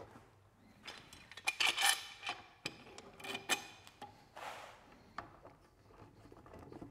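Metal woodworking clamps clinking and rattling as they are handled and tightened on a glued-up wooden board, in two clusters of clinks with short metallic ringing, and a brief swish about four and a half seconds in.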